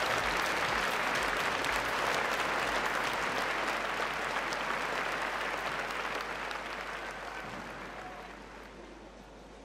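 Large arena crowd applauding, the clapping thinning out and dying away over the last few seconds.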